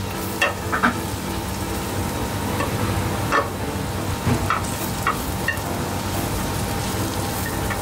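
Minced garlic and dried chili sizzling gently in oil in an aluminium saucepan, with a spatula stirring and scraping against the pan a few times. This is the garlic being cooked slowly over low heat to drive off its moisture and flavour the oil.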